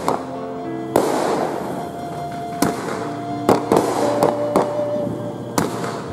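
Aerial fireworks bursting overhead: about seven sharp bangs, unevenly spaced, each trailed by a brief rushing echo. Music with sustained notes plays underneath.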